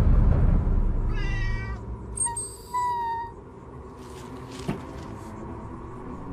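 A cat meowing twice, once about a second in and again at about two and a half seconds, over a low rumble that fades in the first second.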